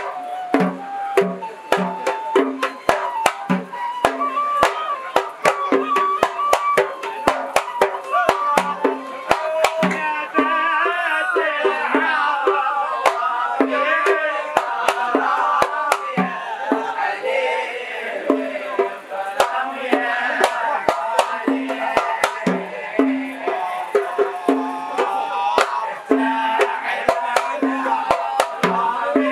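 Hadrami zarbadi drumming: a large rope-tensioned double-headed drum and small marwas hand drums beat a fast, steady interlocking rhythm. From about a third of the way in, a chorus of men's voices sings a religious qasida over the drums.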